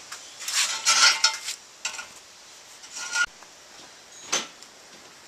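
Hacksaw cutting a piece off a flat steel bar: a few quick strokes in the first second and a half, then scattered short metal clinks.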